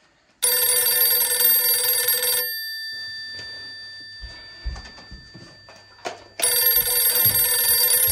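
Telephone ringing with an old-style bell ring: two long rings, the second starting about six and a half seconds in, with a few soft knocks between them.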